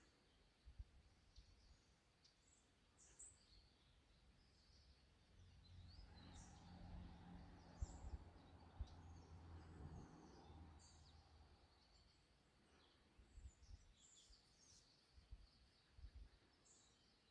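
Atlantic canaries giving faint, short high-pitched chirps and twitters, scattered through. From about six seconds in, a low hum swells and fades again by about eleven seconds.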